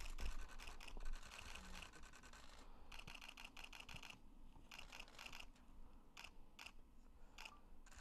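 Camera shutters firing in rapid bursts: a long run of quick clicks, then several shorter runs with brief pauses between.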